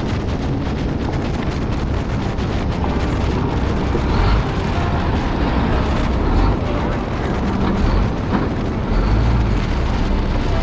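Motorcycle engine running, a loud steady rumble with the level swelling a few times.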